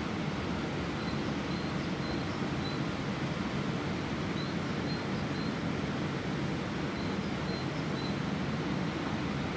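Steady rush of a flowing river, with faint high bird chirps coming in a few short runs.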